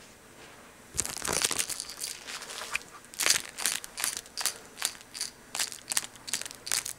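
Cloth rustling and handling noise right at the camera microphone: a string of short crinkly scrapes, starting about a second in and coming roughly three a second from about halfway through.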